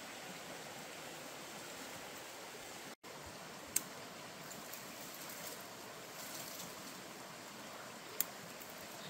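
Steady rushing background noise, like a nearby stream or hiss, broken by two sharp clicks about four seconds apart and a momentary dropout about three seconds in.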